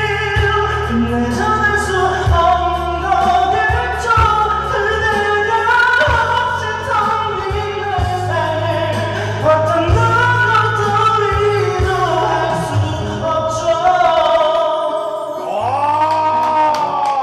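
A man singing a song into a handheld microphone over a backing track with a steady bass line, finishing on one long held note near the end.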